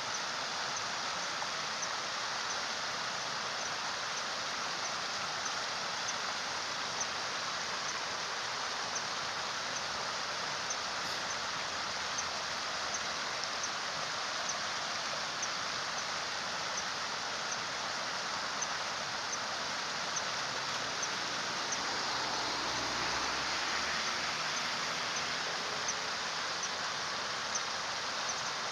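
Steady rush of flowing water, like a stream, with a faint high tick repeating about every two-thirds of a second.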